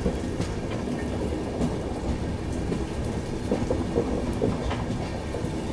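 Passenger train running on the track, heard from aboard a coach: a steady rumble of the wheels on the rails with a few faint knocks.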